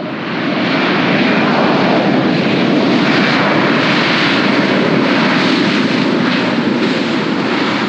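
Airbus A320-214's CFM56 jet engines running loud at high power as the airliner rolls down the runway past close by. The roar rises sharply within the first second, holds steady, and eases slightly near the end.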